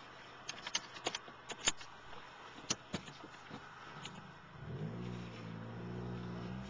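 A scatter of sharp, irregular clicks in the first few seconds. Then, about four and a half seconds in, the Honda Civic's engine revs up and holds a steady raised pitch, heard from inside the cabin.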